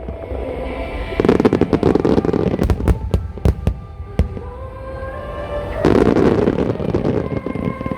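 Fireworks going off: repeated sharp bangs, with bursts of dense crackling about a second in and again about six seconds in. Music with held tones plays underneath.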